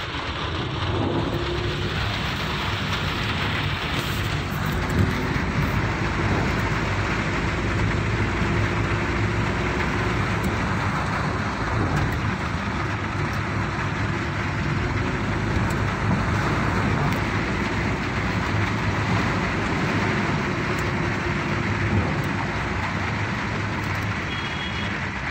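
Inside a car's cabin, driving on a rain-soaked, flooded road: a steady low engine and road rumble under an even hiss of wet tyres and rain on the car.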